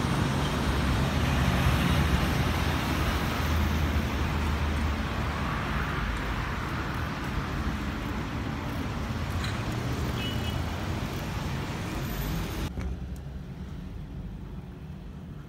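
Distant jet rumble of a departing Airbus A319-132's IAE V2500 engines: a steady, broad roar that fades slowly as the airliner climbs away. The higher hiss drops out suddenly near the end.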